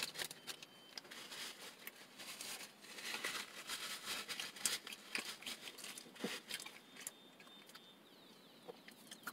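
Faint chewing of a sandwich, with the crinkle of its paper wrapper being handled. The sounds die away for the last couple of seconds.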